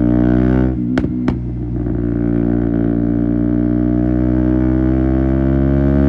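KTM Duke 125 single-cylinder engine running through an Akrapovic exhaust on the move. About a second in the throttle closes and the exhaust gives two sharp pops, then the engine pulls again with its pitch rising slowly as the bike accelerates.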